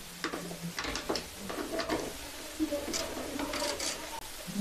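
Ratchet socket wrench clicking in short irregular runs as a 10 mm tail-light mounting bolt is undone.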